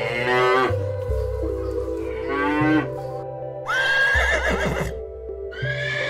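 Dairy cows mooing, two calls in the first three seconds, then a higher, wavering call about four seconds in, over background music.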